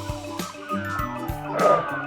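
Background music with a steady beat; near the end a brief louder sound with falling tones rises above it.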